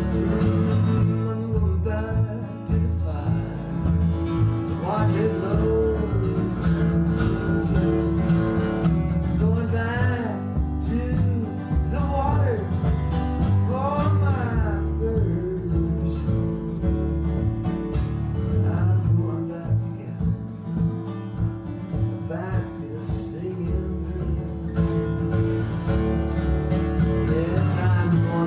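Acoustic guitar music in a country-bluegrass style: steady chords underneath, with a melody line that swoops up and down over them.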